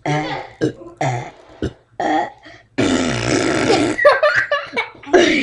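A child burping over and over: a run of short burps, then one long drawn-out burp of over a second starting about three seconds in.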